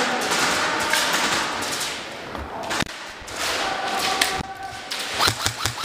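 Airsoft guns firing in an indoor arena: a long automatic burst for about the first two seconds, then a few scattered sharp cracks, and a quick run of shots with thuds near the end.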